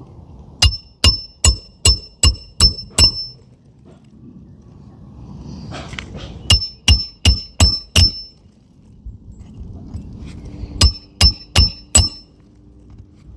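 Hammer driving roofing nails through an asphalt shingle by hand: three runs of sharp blows with a short metallic ring, about two or three blows a second, each run sinking one nail.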